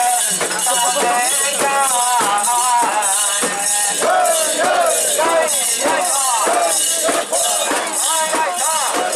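Mikoshi bearers singing and chanting together while the metal rings on the portable shrine's carrying poles jingle in a steady rhythm, about two clashes a second, as the shrine is shaken.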